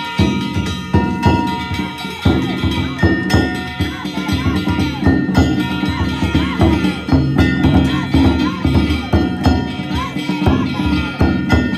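Danjiri float music: repeated drum beats with hand-struck kane gongs ringing on, and voices calling out over them.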